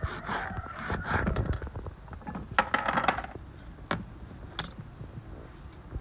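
Kitchen knife cutting green peppers on a plastic cutting board: scraping and rustling for the first second or so, a cluster of quick clicks and scrapes around the middle, then a couple of single taps.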